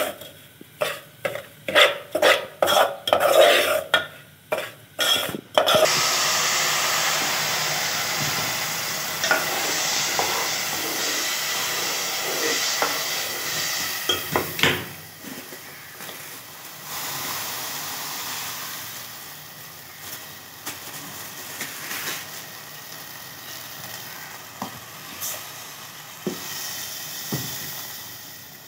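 A metal spoon scrapes an aluminium pot in quick, regular strokes while stirring semolina for halwa. About six seconds in, liquid hits the hot semolina with a sudden loud sizzle that slowly dies down to a quieter bubbling, with an occasional clink of the spoon on the pot.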